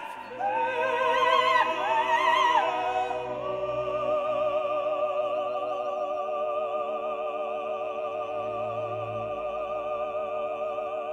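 Background music: an operatic voice singing with strong vibrato, with shorter notes at first and then, about three seconds in, one long held note over sustained accompaniment.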